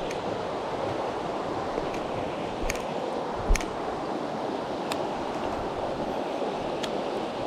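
Mountain stream water rushing steadily, with a few sharp clicks and one low thump about three and a half seconds in.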